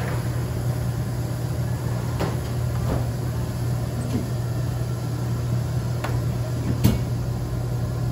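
Steady low mechanical hum of restaurant equipment, with a few light knocks and clatters as food containers are handled at a refrigerated topping bar, the sharpest about seven seconds in.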